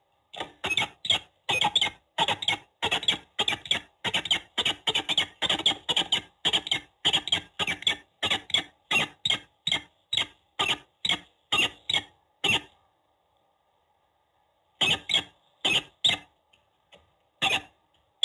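Peregrine falcon calling close to the nest-box microphone: a rapid string of short, harsh calls, about three a second, for some twelve seconds, then a short pause and a few more calls near the end.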